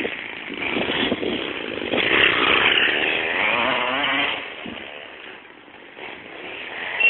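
OS FS-26C single-cylinder four-stroke glow engine of a radio-controlled car running and revving, its pitch wavering up and down. It is loudest in the middle, fades for a moment around five seconds in, and swells again near the end.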